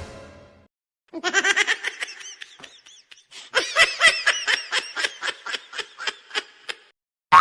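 Comedy laugh sound effect: a high-pitched giggling laugh in two runs, the second breaking into a rapid, even ha-ha-ha of about five pulses a second that trails off.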